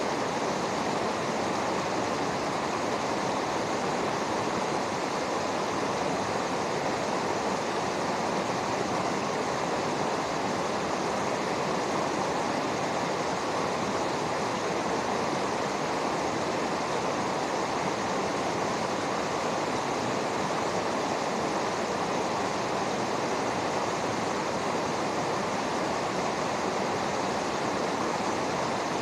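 Fast-flowing river rushing over rocks: a steady, even rush of water that does not change.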